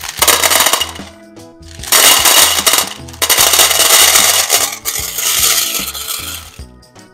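Hard-shelled M&M's candies poured into a metal tin, clattering loudly in several pours with short breaks, the first about a second long and the last running several seconds before stopping near the end. Background music plays under it.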